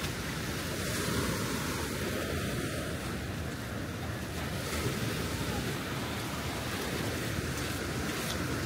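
Steady wind buffeting the microphone, a continuous rushing noise with a flickering low rumble.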